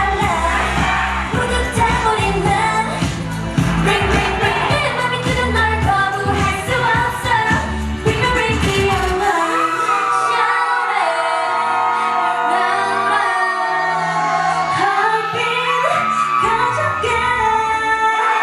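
K-pop girl-group song with female singing over a pop backing track. About halfway through the bass and beat drop out, leaving held vocal and synth lines, with the bass coming back only briefly.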